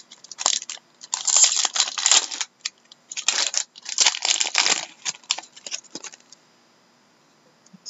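Wrapper of a pack of hockey cards being torn open and crinkled by hand, in a run of crackling, papery bursts that stop about six seconds in.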